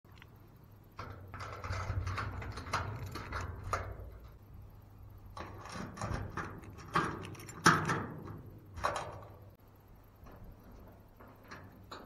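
Clattering knocks and scrapes in two bursts, with the sharpest knock about eight seconds in.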